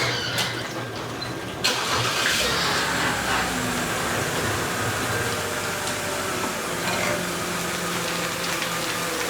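BMW E90 328i inline-six engine cranking and starting about two seconds in, then running steadily at idle.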